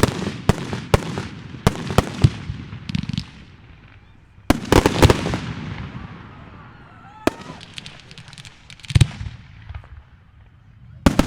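Fireworks shells bursting: a rapid string of sharp bangs for the first few seconds, a dense cluster of bangs about four and a half seconds in, then single bangs a couple of seconds apart.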